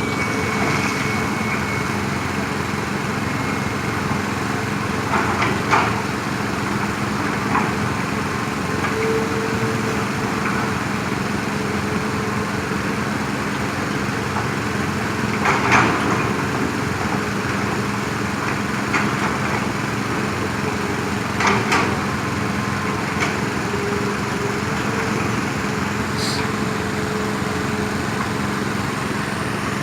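Heavy diesel construction machinery running steadily, with a few sharp clanks now and then.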